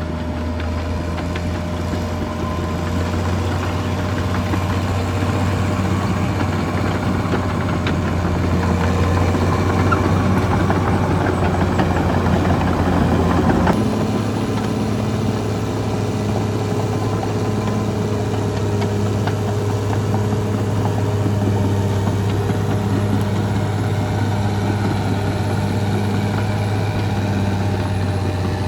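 Caterpillar D6R XL bulldozer's diesel engine running steadily. The sound grows denser and a little louder, then changes abruptly to a steadier note about halfway through.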